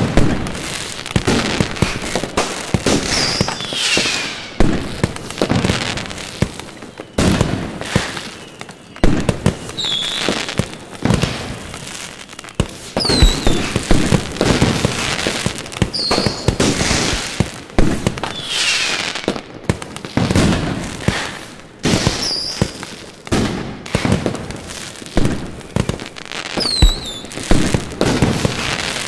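Fireworks display: a continuous barrage of shell bursts and bangs, many in quick succession, with crackling between them. Short high whistles slide down in pitch every few seconds.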